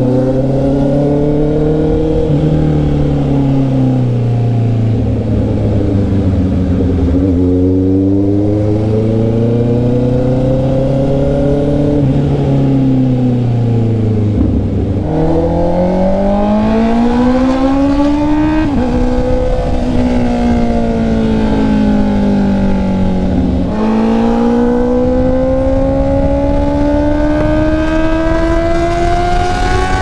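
Honda CB650R's inline four-cylinder engine pulling the bike along, its pitch rising and falling with the throttle. Twice in the second half the pitch drops suddenly at an upshift and then climbs again.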